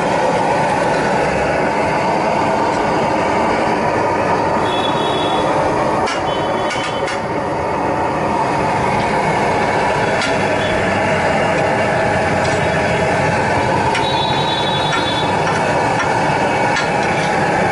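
Steady, dense noise of a large flat iron griddle (tawa) sizzling with butter and pav bhaji, mixed with busy street noise, with scattered light clicks of a metal spatula on the iron and a few short, faint high beeps.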